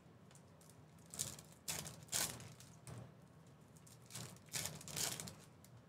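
Foil trading-card pack wrapper crinkling as it is handled and torn open, in a run of short crackly bursts.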